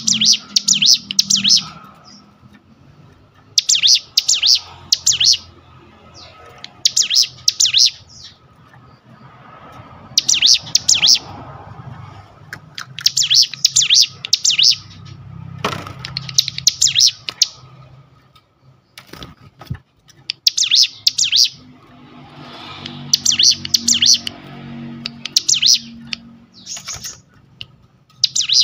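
Ciblek gunung, a prinia, calling in about a dozen loud, high-pitched bursts of rapid buzzing trills, each one to two seconds long with short pauses between.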